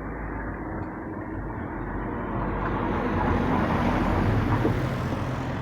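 A motor vehicle passing: engine hum and tyre noise grow louder to a peak about four seconds in, then begin to fade.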